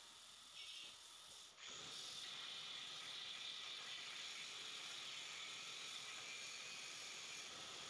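CNC plasma cutter torch striking its arc about a second and a half in, then hissing steadily as it cuts through steel plate.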